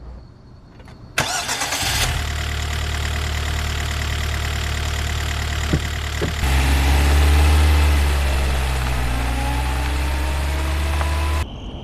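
Car engine cranked and started about a second in, then running steadily. There are two short clicks just before six seconds; after these the engine grows louder and rises slowly in pitch as the car pulls away. The sound cuts off abruptly near the end.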